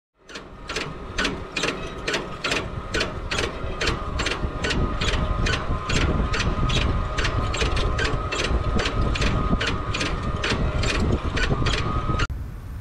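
FarmDroid FD20 field robot working a crop row: a steady rumble with a high whine and regular clicking, about two and a half clicks a second. It cuts off suddenly near the end.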